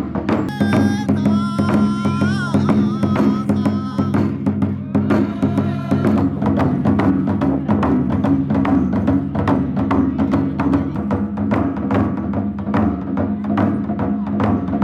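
Music with a fast, steady percussion beat over sustained low tones; a high melody line with sliding notes comes in during the first few seconds.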